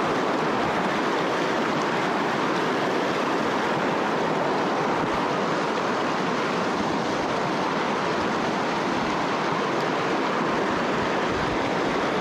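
Steady rushing of river water, an even hiss with no changes.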